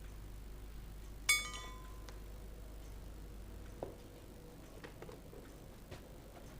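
A single bright, ringing clink about a second in, then a soft knock a few seconds later and a few faint ticks.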